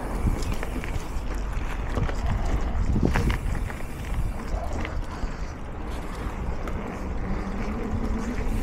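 Low, uneven rumble of wind on the microphone, with scattered short knocks and clicks.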